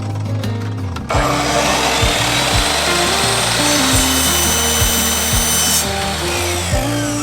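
Background music with a steady beat, and over it a power tool working on PVC pipe, starting about a second in and stopping near six seconds, with a rising whine as it runs.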